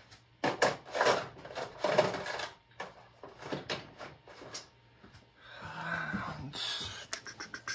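Drawers of a red metal rolling tool chest being slid open and shut, with short clattering knocks as things are moved about inside, and a longer sliding rumble about six seconds in.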